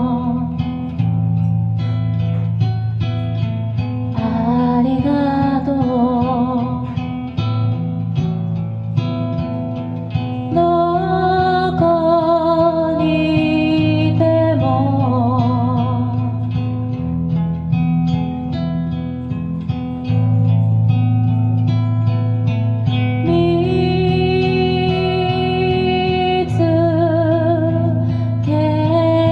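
A woman singing a slow song with wavering vibrato on held notes, accompanied by a strummed and picked acoustic guitar.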